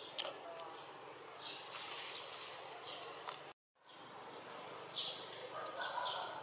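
Forest background: short, high chirps repeating over a steady hiss, cutting out completely for a moment about three and a half seconds in.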